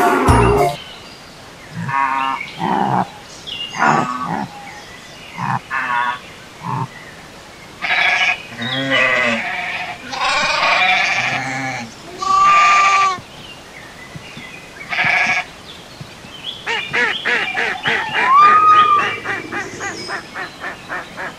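A series of separate animal calls a second or two apart, sheep bleats among them. Near the end comes a fast run of short repeated pulses.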